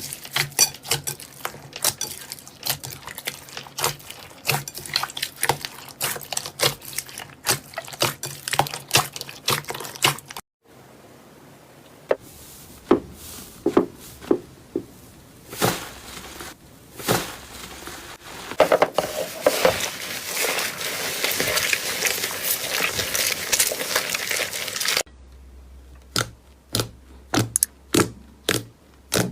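Slime being pressed, poked and stretched by hand, making rapid sharp clicks and pops. After a cut come scattered pops that build into a dense crackling, and after another cut a series of separate crisp clicks.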